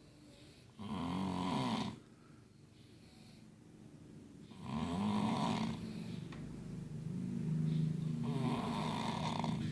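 A person snoring in their sleep: loud snores start about a second in and about five seconds in, with quieter breathing between, and a longer drawn-out snore near the end.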